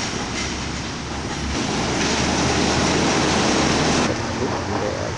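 Wuppertal Schwebebahn suspension railway train running by: a steady rumble and rush that grows louder about one and a half seconds in and drops away abruptly about four seconds in.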